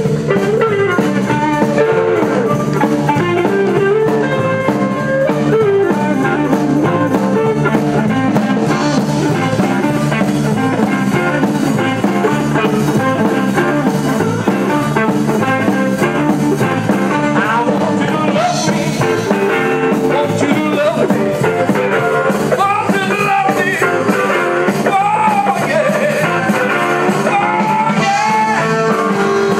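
Live blues band playing, with guitar, bass and drums, and a pitched lead line bending up and down above them.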